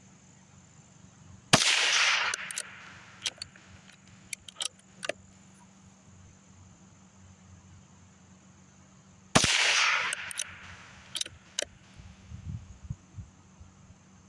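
Two rifle shots from a Rossi RB22 bolt-action .22 firing CCI Stinger hyper-velocity rounds, about eight seconds apart, each with a short echo. Each shot is followed by a few light clicks of the bolt being worked to eject the case and chamber the next round.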